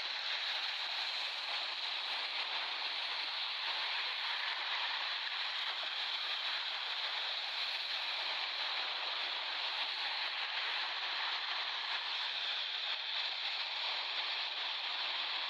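Ocean surf washing on a beach: a steady, even rush of water, with no single wave crash standing out.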